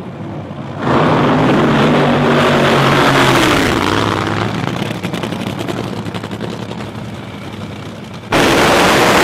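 Top Fuel dragsters' supercharged nitromethane V8 engines at the start line: the engines jump to a hard rev about a second in, then ease off with falling pitch. Near the end the sound abruptly steps up much louder as the cars go to full throttle.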